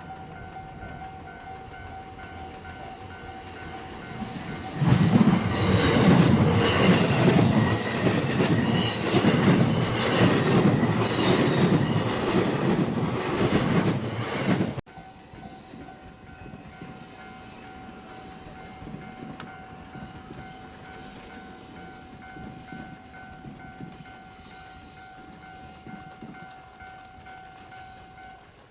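Japanese level-crossing alarm ringing steadily while a JR Tokaido Line train passes loudly over the crossing for about ten seconds, with high squealing from its wheels on the curve. The train noise cuts off abruptly. The crossing alarm rings on with faint wheel squeal and stops near the end.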